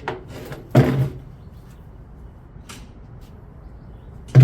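Two sharp bangs, one about a second in and a louder one at the end, with a light click between them.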